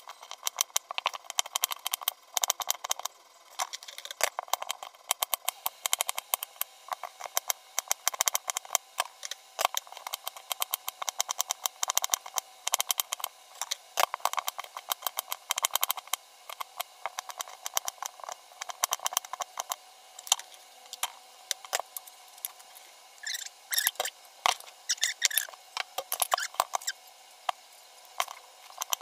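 Kitchen knife chopping and dicing onion on a plastic cutting board: quick runs of sharp taps as the blade hits the board, with short pauses between runs.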